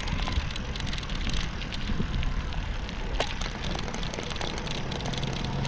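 Uneven low rumble of wind buffeting the microphone, with scattered clicks and knocks from travel over a rough, unpaved road. A steady vehicle engine hum comes in near the end.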